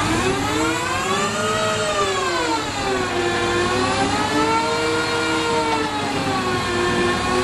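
A heavy engine running continuously under varying load, its pitch slowly rising and falling every couple of seconds as it revs up and down.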